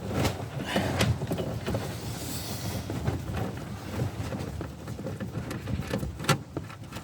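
Small irregular clicks and scraping of a hand-turned 8 mm long-reach socket tightening the rear light's fixing nuts, with a few sharper metal clicks among the rustle of handling.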